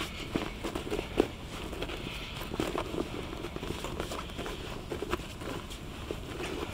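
Ground bait and maggots being shaken and tumbled together in a fabric bait bowl: an irregular patter of soft taps and rustling, with one sharper knock about a second in.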